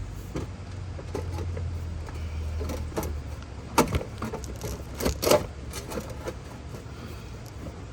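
Knocks and clatter of a stainless steel range hood being pushed into place and fastened, with a low steady hum for about two seconds near the start.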